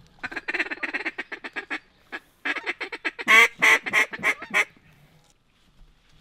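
Duck call blown in quacks: a quick run of short quacks for about a second and a half, a brief pause, then a second run of louder, longer quacks that stops about four and a half seconds in.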